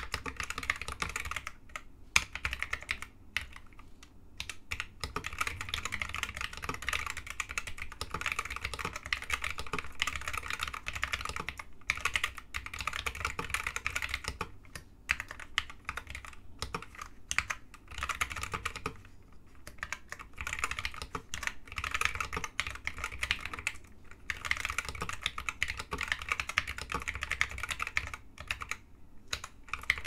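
Typing on a 60% custom mechanical keyboard with white linear Hi-Tek 725 "Space Invader" switches in a home-made aluminium sandwich case: a quick, continuous run of key clacks, broken by a few short pauses.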